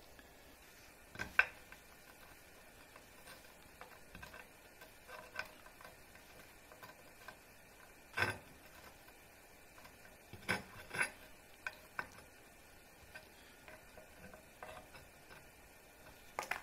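Scattered light clicks and knocks of small hard pieces being handled and set down on a work surface, a few at a time. The loudest come about a second and a half in and about eight seconds in.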